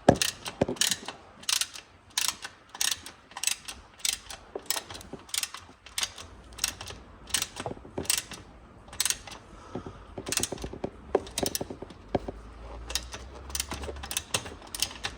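Ratchet wrench clicking in a steady rhythm, about one to two clicks a second, as a rear hugger bolt is turned on a Kawasaki ZX10R. The bolt keeps going round and round without tightening.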